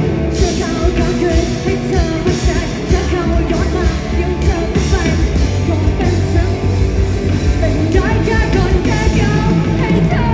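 A live rock band playing: a singer over guitars, bass guitar, drums and keyboard.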